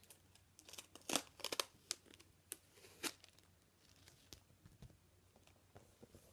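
The retail box of an Xbox One stereo headset adapter being torn open by hand: a cluster of short ripping and crinkling sounds in the first three seconds, loudest just after a second in, then only a few faint rustles.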